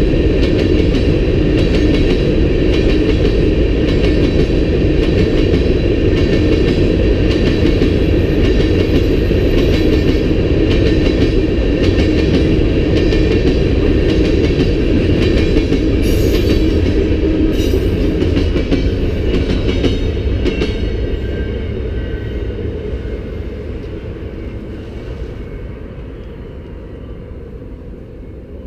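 Freight train of covered hopper cars rolling past: a steady loud rumble of steel wheels on rail with a thin high metallic ringing above it, fading away over the last several seconds as the end of the train departs.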